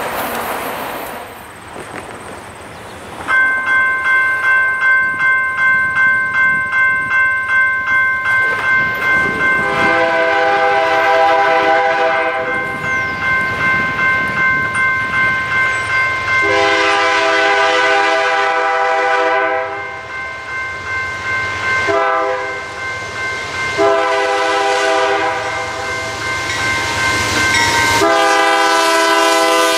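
A CN freight locomotive's air horn blows the grade-crossing signal, long, long, short, long, as the train approaches. Over it runs a steadily ringing bell that starts a few seconds in, likely a grade-crossing warning bell.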